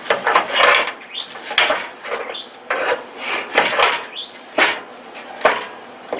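Metal scraping and clinking against the steel frame and floor pan, a series of irregular short strokes, roughly one or two a second.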